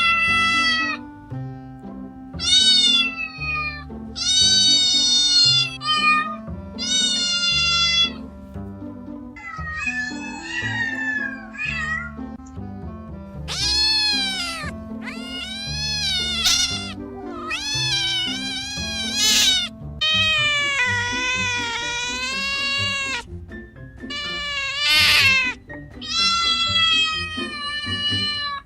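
Kittens meowing over and over, more than a dozen high meows that rise and fall in pitch, some short and a few long and drawn out, over steady background music.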